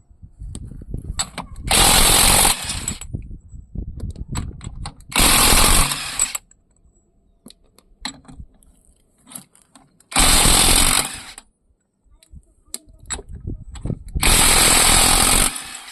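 Ingco 850 Nm cordless impact wrench with a 32 mm socket hammering in four bursts of about a second each, with clicks and clatter of handling between bursts.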